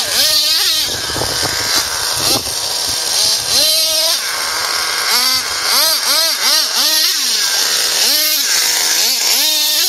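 Radio-controlled monster truck's small nitro engine revving up and falling back again and again with bursts of throttle, a high buzzing two-stroke sound.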